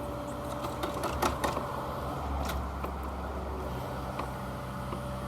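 Diesel engine of an earth-moving machine running steadily, with a few sharp clanks of metal or stone about one to two and a half seconds in.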